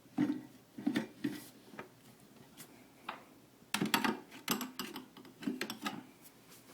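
Irregular clicks and knocks of hard parts being handled on a Breville Cafe Roma espresso machine, with a busier cluster of clatter a little past the middle, as the packed filter holder is fitted.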